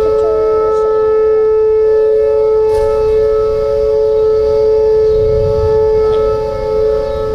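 Outdoor civil-defence tornado siren sounding a steady, unwavering tone, the alarm for a tornado warning in effect.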